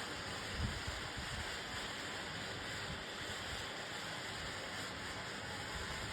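Green smoke bomb hissing steadily as it burns, with wind buffeting the microphone in low thumps, the strongest about half a second in.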